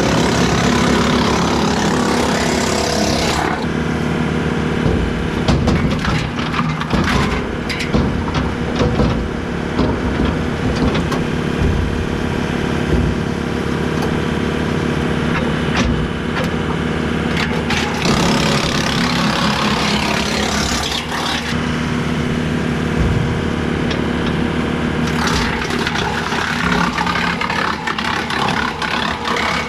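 Tractor engine running steadily under load, driving a Woodland Mills WC68 PTO wood chipper as small branches and scrap wood are fed through. It chips with loud grinding stretches near the start, in the middle and near the end, and many sharp cracks and snaps in between.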